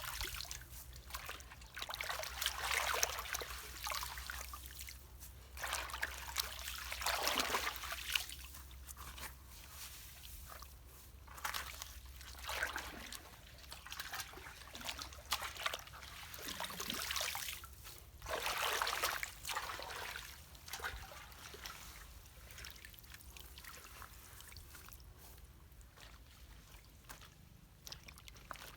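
Water trickling and splashing as a clogged culvert drains, coming in uneven surges every couple of seconds and growing fainter near the end.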